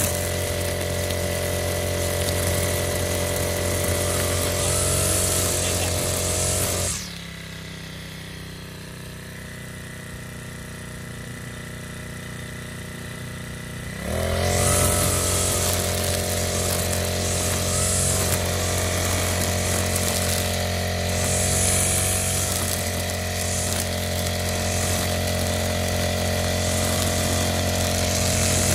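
Backpack brush cutter's small engine running at cutting speed. About seven seconds in it drops to idle with a falling pitch, then revs back up to full speed about seven seconds later.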